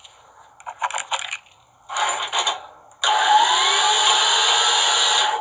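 Two brief bursts of handling noise, then a loud, steady mechanical noise that starts abruptly about three seconds in and cuts off suddenly.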